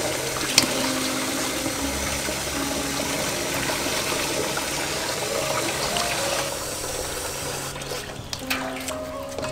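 Water sloshing and running as cut fish pieces are rubbed and washed by hand in a steel basin. The water noise stops about eight seconds in.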